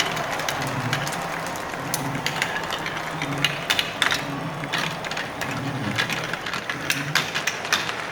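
Marbles clicking and knocking against each other and the walls in quick, irregular sharp ticks, over a low pulsing background hum.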